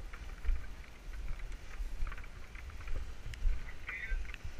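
Uneven low rumble of wind and handling on the camera's microphone, with scattered light ticks and rustles.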